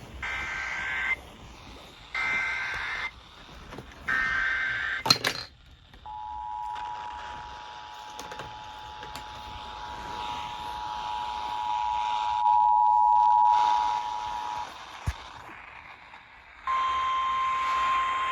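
Emergency Alert System header: three roughly one-second bursts of warbling data tones, a sharp click, then the EAS two-tone attention signal held steady for about nine seconds. After a short gap a single steady alarm tone starts near the end, over a broadcast hiss.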